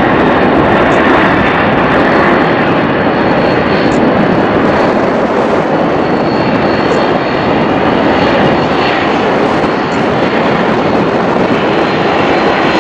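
McDonnell Douglas MD-11's three jet engines at takeoff thrust as the trijet lifts off and climbs away: a loud, steady rumble with a faint high whine, easing slightly near the end.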